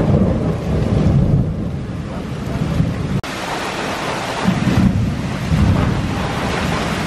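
Heavy rain pouring onto a wooden deck and the trees around it, a steady hiss with a low rumble underneath.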